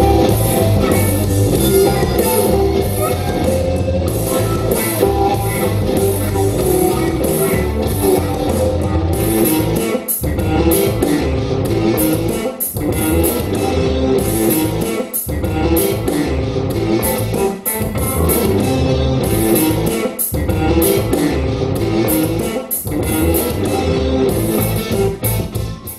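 IKEA Symfonisk bookshelf speaker playing a rock instrumental with guitar at maximum volume and maximum equalizer settings, measuring about 92 decibels.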